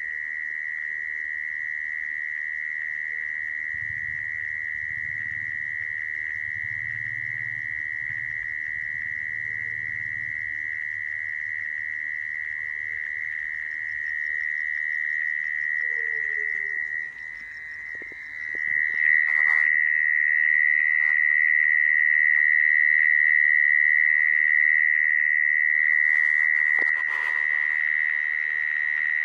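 Mole cricket calling: one unbroken, high buzzing trill that gets louder about two-thirds of the way through. A few brief knocks come near the end.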